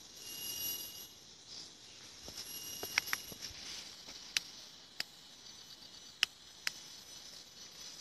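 Forest insects calling in steady high-pitched tones, with a handful of sharp clicks or snaps from about three seconds in.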